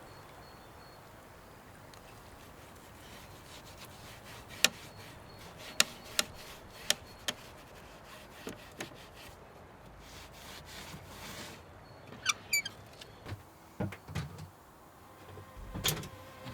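Hand-tool woodworking: a handful of sharp, irregularly spaced wooden clicks and knocks, the loudest a few single taps, with a short high squeak about twelve seconds in.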